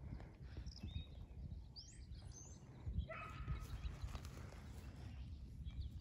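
Faint outdoor ambience: an uneven low rumble, with a few faint high chirps about two seconds in and a short pitched sound about three seconds in.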